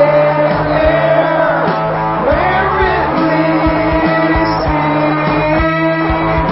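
Rock music: guitar with a steady drum beat.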